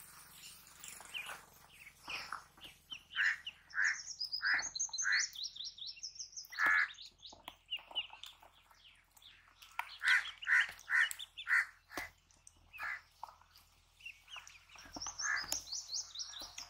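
Ducklings peeping, a string of short, separate calls with uneven gaps between them.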